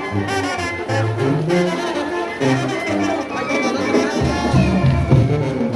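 Brass band music: trombones and trumpets playing a tune, with heavier low notes about four seconds in.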